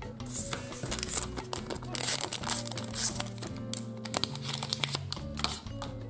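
A small blind-bag packet crinkling and being torn open, with a run of sharp rustling and crackling bursts that stops near the end, over background music.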